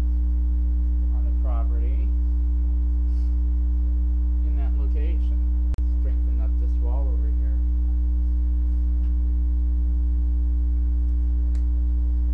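Loud, steady electrical mains hum, a low buzz with fainter overtones above it, with a faint voice murmuring now and then. The sound drops out for an instant about six seconds in.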